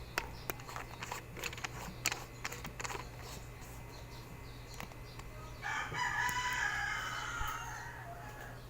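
Light clicks and taps from handling the computer's memory module for the first three seconds, then a drawn-out animal call lasting about two seconds, over a low steady hum.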